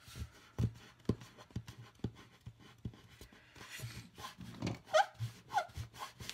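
A few short squeaks with quick slides in pitch, about five seconds in, over soft taps and handling noises from hands working a paper cutout on a table.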